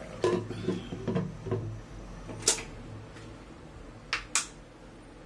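A few light knocks and clicks of things being handled, then a single sharp click about halfway and two sharp clicks close together near the end, over a steady low hum.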